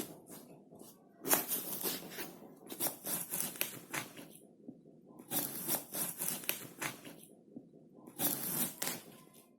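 Knife cutting through crisp fruit: four separate bursts of crunchy, crackling cutting strokes, each about a second long with sharp snaps inside, separated by short pauses.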